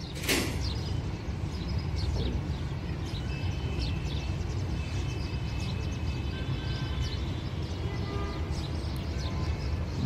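Outdoor ambience at a railway junction: a steady low rumble with scattered short high chirps and a few thin high tones.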